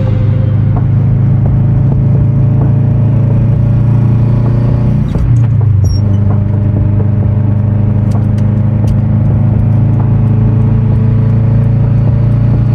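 Subaru Impreza hatchback's flat-four engine and exhaust droning steadily at highway cruising speed, heard from inside the cabin along with road noise. About five seconds in the drone briefly dips and shifts in pitch.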